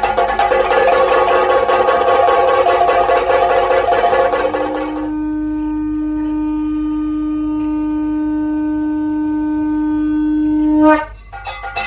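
Kathakali percussion ensemble playing a fast rhythm with clashing cymbals. About four seconds in, a conch shell is blown in one long steady note that swells slightly and cuts off suddenly, and the percussion picks up again just after.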